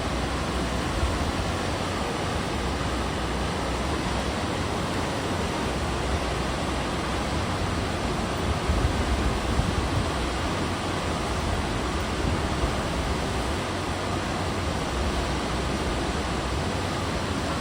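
Steady rush of sea water moving past a cruise ship, with a constant low rumble underneath and a slightly louder swell about halfway through.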